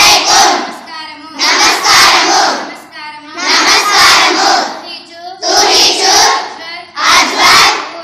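A large group of schoolgirls loudly chanting short Kashmiri phrases in unison, one burst about every one and a half seconds, with a quieter voice calling each phrase in between, call-and-response style.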